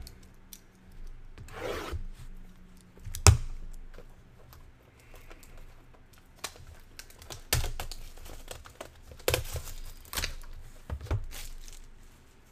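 Hands tearing and crinkling open the wrapping of a sealed trading-card box, in several separate bursts, with a sharp knock about three seconds in.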